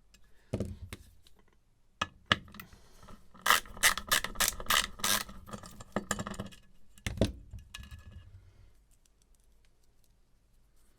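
Small metal parts of a hard disk drive being handled and pried apart: irregular clicks, light taps and scrapes, with a quick run of sharp clicks in the middle and a heavier knock a couple of seconds later.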